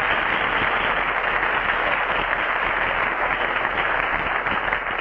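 Studio audience applauding steadily for a guest's entrance.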